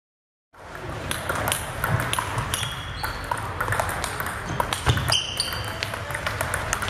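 Table tennis balls clicking off paddles and tables in a gym hall, from this rally and neighbouring tables, starting after a brief silence about half a second in. A few short high squeaks cut in, with faint chatter underneath.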